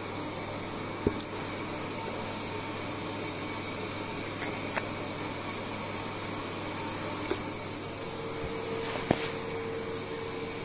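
Steady hum and hiss of workshop room noise, with a few light knocks; a faint steady tone joins about eight seconds in.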